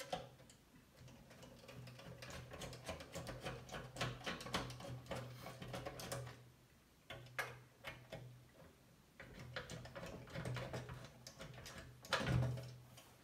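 Screwdriver backing the mounting screws out of a PC power supply in a metal case: runs of quick light clicks and ticks, easing off in the middle and picking up again, with a louder clatter near the end.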